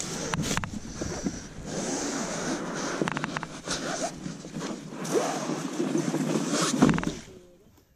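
Rustling and knocking of gear being handled on an inflatable kayak: a plastic dry bag and its bungee cord. There is a quick run of clicks about three seconds in, and the sound stops abruptly near the end.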